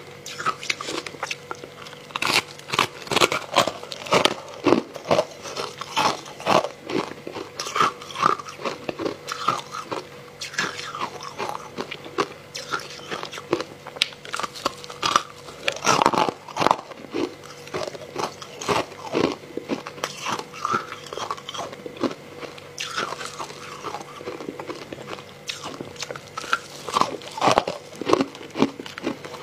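Close-miked biting and chewing of hard frozen matcha ice chunks: a dense, irregular run of loud crunches and crackles, with a burst of heavy crunching in the middle.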